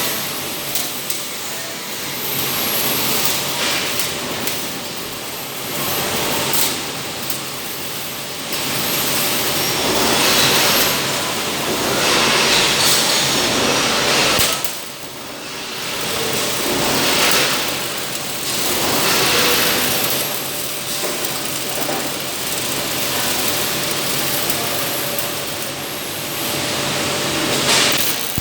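Robotic welding cell running: a steady machine hum under a broad hiss that swells and eases every few seconds.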